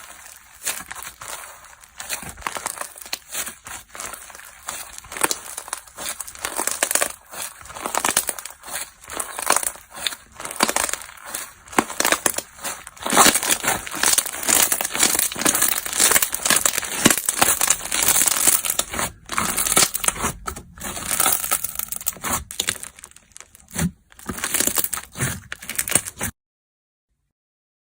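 Slime being squished and stretched by hand, with dense crackling and popping that grows louder about halfway through and then cuts off suddenly near the end.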